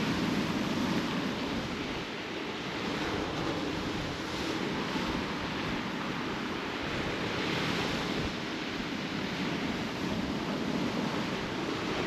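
Rough surf breaking and washing on a shingle beach, a steady rush that swells and eases, with wind.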